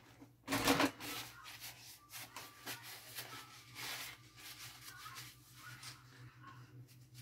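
Paper towel rustling as hands handle it: one loud crinkle about half a second in, then a run of soft, scattered rubbing and rustling.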